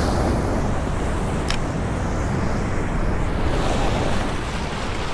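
Steady wind noise rushing over the microphone, mixed with water washing, in a strong wind; one brief click about a second and a half in.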